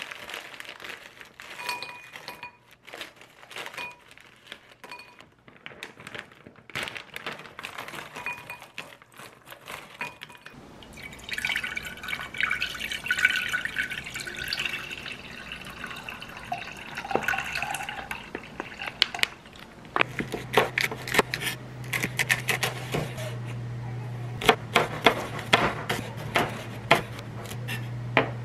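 Kitchen food preparation. Light rustling and clicks come first. Bone broth is then poured into a pot, splashing for a few seconds about a third of the way in. In the last eight seconds a knife chops green onions against a cutting board in quick, sharp strikes, over a steady low hum.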